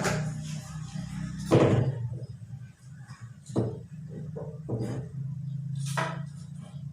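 A series of sharp knocks and clunks from pipes and fittings being handled during plumbing work, the loudest about one and a half seconds in, over a steady low hum.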